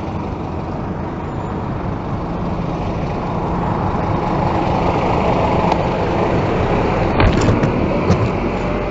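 Steady low rumble of a double-decker bus's engine close by, slowly growing louder. About seven seconds in, a few sharp clattering knocks as the bicycle tips over onto the road, the rider unable to unclip from the pedal cleats.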